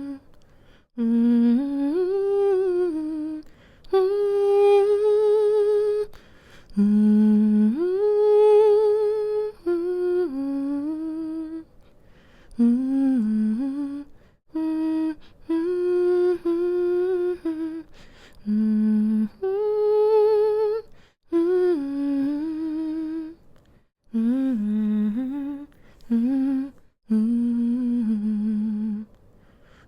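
A woman humming a slow, soothing lullaby-like tune to lull a baby to sleep, in short phrases of a few held and gliding notes with brief pauses between them.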